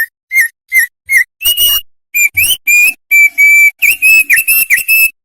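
Opior (white-eye) songbird singing: four short whistled notes, then a quicker run of clear sliding whistles, some rising and some dipping.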